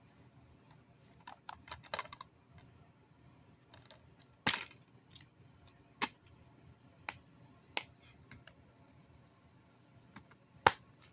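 Plastic DVD keep case being handled: a string of sharp clicks and snaps as the case is opened and the disc is popped off its centre hub, with the loudest snap near the end.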